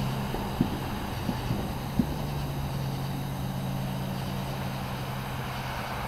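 Distant fireworks going off: a few short low thumps in the first two seconds, over a steady low motor hum.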